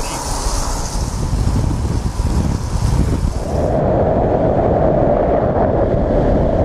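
Car driving at road speed: steady road rumble and wind noise. About four seconds in it changes abruptly to a louder wind rush buffeting a camera mounted outside on the car.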